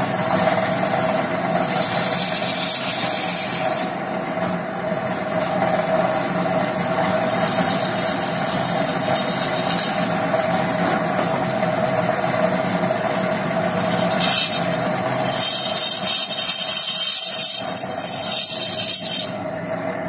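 Wood lathe motor running with a steady hum while a hand-held turning chisel cuts the spinning wooden blank, the scraping hiss of the cut coming and going in spells of a few seconds, loudest in the second half.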